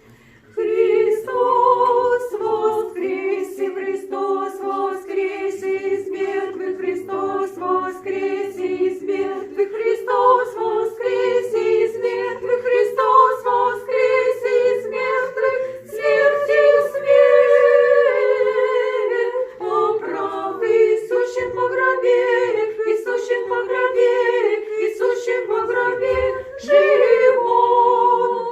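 Orthodox church choir singing a liturgical chant a cappella, several voices in harmony, coming in about half a second in and going on in phrases with short breaks.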